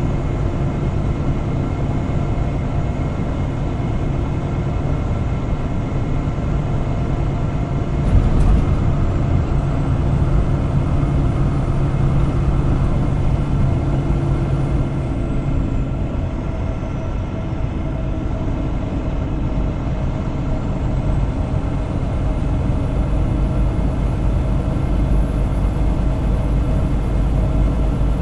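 Inside the cab of a 2016 International LoneStar semi-truck: its diesel engine running steadily under load as the truck starts up a grade, with road and tyre rumble. A brief thump about eight seconds in.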